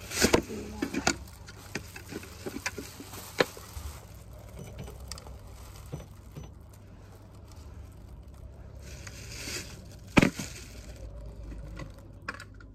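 Close handling of a plastic carrier bag and a wallet: rustling with a few sharp clicks and knocks, the loudest about ten seconds in. A low steady hum runs underneath.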